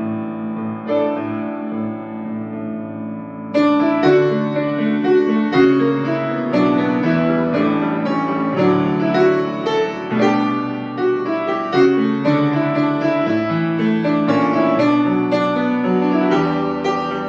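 Solo piano playing a hymn arrangement: soft held chords at first, then about three and a half seconds in a sudden change to louder, brighter playing with many quick notes.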